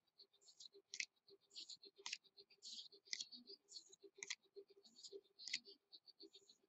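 Faint clicks and scratchy rustles of 2015 Bowman football trading cards being flipped through and handled, with a sharper click about once a second.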